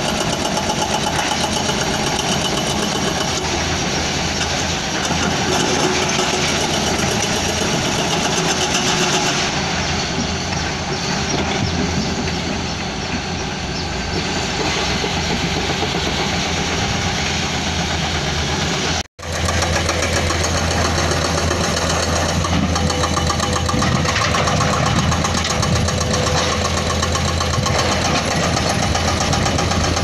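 Diesel engines of several hydraulic excavators and dump trucks running together in a dense, steady drone. The sound breaks off for an instant about two-thirds of the way through, and a low engine hum is stronger afterwards.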